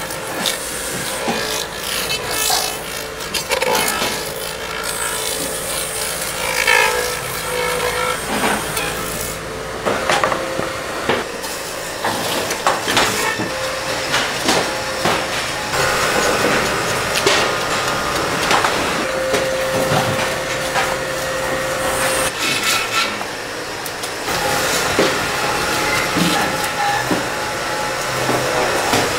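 Knives and a grinding wheel scraping and shaving frozen tuna: a harsh, continuous rasping broken by many sharp scrapes and knocks.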